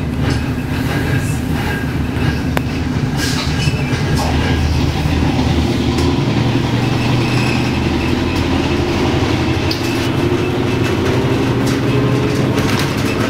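Inside the cabin of a LiAZ-677M bus, its V8 petrol engine runs with a deep hum and the body and fittings rattle. From about five seconds in, a tone climbs steadily in pitch as the bus pulls away and gathers speed.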